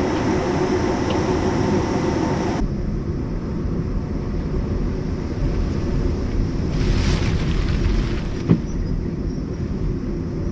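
Hurricane-force wind blowing hard and buffeting the microphone, a dense low rumble with hiss. The sound shifts abruptly about two and a half seconds in, a gust swells around seven seconds, and there is a sharp knock soon after.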